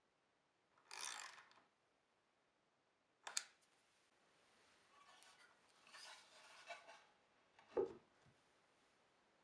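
Quiet workshop handling sounds: a socket ratchet clicking briefly about a second in, a sharp metallic click a little later, then rubbing of wood on wood and a single wooden knock near the end as the plywood stand is handled on the workbench.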